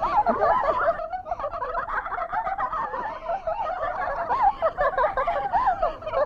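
A group of young women laughing together, many voices overlapping, with a brief lull about a second in.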